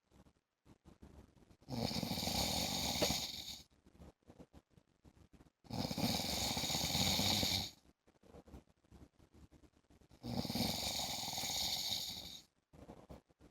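A man snoring in a regular rhythm: three long snores of about two seconds each, one roughly every four seconds, with quiet breaths between.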